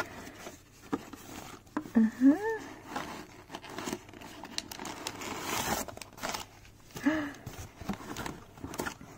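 Cardboard box flaps being handled and plastic wrapping crinkling as a parcel is unpacked, with a run of small taps and rustles and the densest crinkling about five to six seconds in. Two short hummed vocal sounds, about two seconds in and about seven seconds in.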